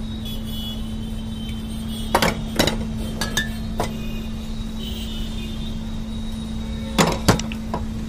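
Sharp clinks and knocks of syrup bottles being capped and set down on a counter: a pair about two seconds in, a few lighter ones soon after, and another pair near the end, over a steady low hum.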